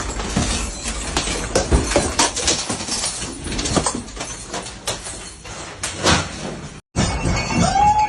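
Household objects, doors and cupboards rattling and knocking over a low rumble, as in a room shaken by an earthquake. The sound stops abruptly near the end, and a steady high tone begins.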